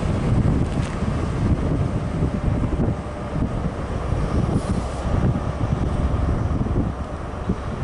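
Diesel engine of an HST Class 43 power car running as the train pulls away, a steady low rumble, with wind buffeting the microphone.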